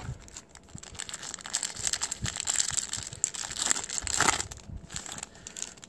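A Star Trek CCG booster-pack wrapper crinkling as it is pulled from the box and handled, loudest a little past four seconds in.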